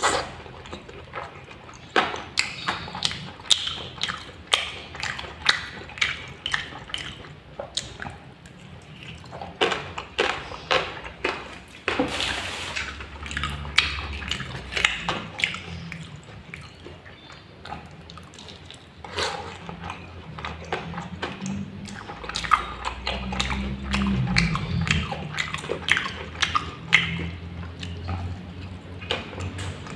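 Close-miked eating of fried instant noodles and fried meatballs: irregular wet chewing and mouth smacks, with many sharp clicks.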